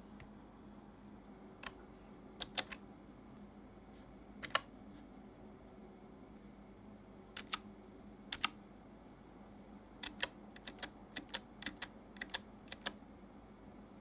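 Keys of an AJAZZ 308i Bluetooth keyboard with round typewriter-style keycaps clicking as they are pressed. Single and paired keypresses come a few seconds apart at first, then a quicker run of key clicks follows near the end.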